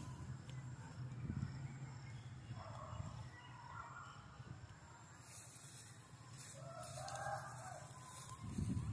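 Faint animal calls in the distance, twice, over a steady low rumble, with a brief louder low rumble near the end.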